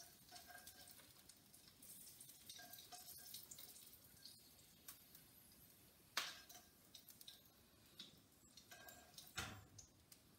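Near silence broken by faint clicks of a utensil against a frying pan, with a sharper knock about six seconds in and another near the end, as cooked green peppers are scooped out onto a plate.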